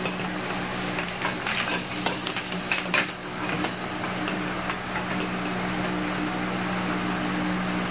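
Light clicks and clacks of a plastic crib toy being handled by a baby, bunched in the first half, over a steady low hum.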